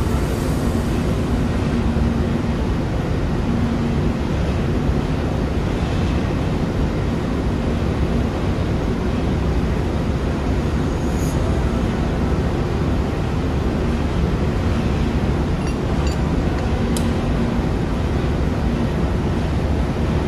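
Steady machinery drone of a ship's engine room, with a faint hum, and a few light clicks of metal parts being handled.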